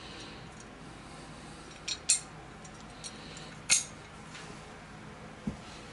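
A few light metal clinks, two close together about two seconds in and another a little before four seconds, over a faint steady hum: small engine parts such as bolts and brackets being handled and set down during a teardown.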